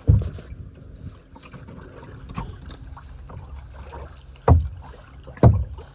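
Paddling a small boat: water moving and splashing against paddles and hull, with three dull thumps, one right at the start and two close together near the end, of paddles knocking on the boat.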